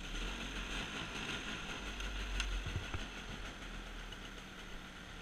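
Arctic Cat ATV engine idling steadily, with a couple of light knocks about halfway through.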